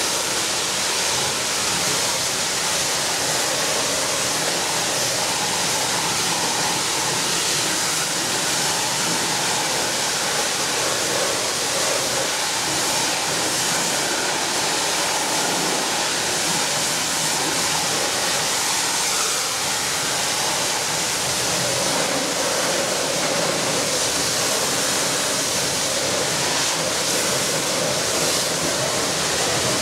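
Pressure-washer wand blasting water against a combine harvester: a steady, loud hiss of spray that does not let up.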